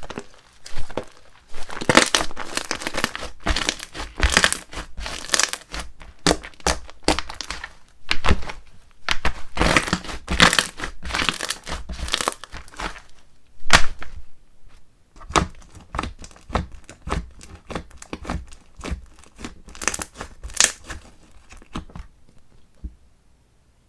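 Borax-free slime being squished, stretched and pressed by hand, giving flurries of rapid crackling clicks and pops with brief pauses between them.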